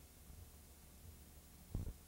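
Faint low hum and hiss from a tape transfer with no program sound, and a short low thump near the end.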